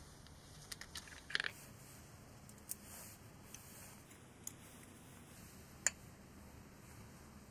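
A few light clicks and taps of small tool parts being handled while a grinding wheel is changed on a pneumatic grinder. There is a small cluster of them about a second in, then single sharp ticks spaced a second or so apart, over a faint steady background.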